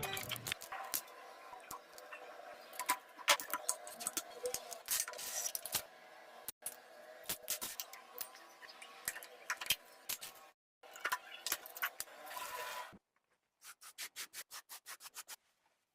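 Hand work on a toy car: many small irregular clicks, clinks and scrapes of tools against small metal parts. Near the end there is a quick regular run of about ten short strokes, some five a second, like scraping or filing.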